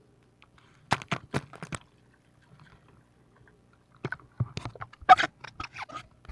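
Seawater splashing and sloshing at the surface as a speared fish is handled at the waterline, in short sharp bursts: a few about a second in, then a busier run from about four seconds on.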